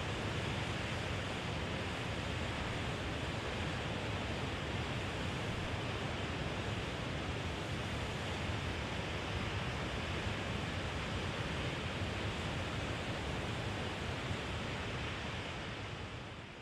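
Steady rushing ocean surf, fading out near the end.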